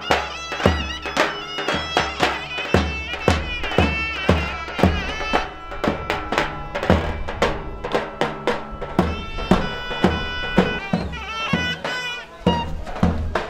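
Traditional folk music: a wind instrument playing a held, ornamented melody over a steady drum beat of about two strokes a second.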